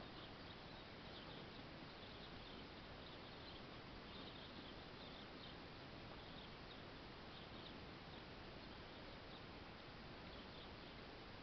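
Near silence: a steady faint hiss with faint, irregular high-pitched chirps scattered through it.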